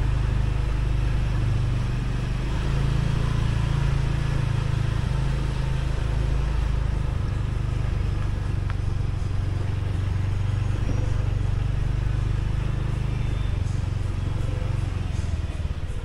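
Motorbike riding along a road, its engine and a steady low rumble running throughout, easing off a little near the end.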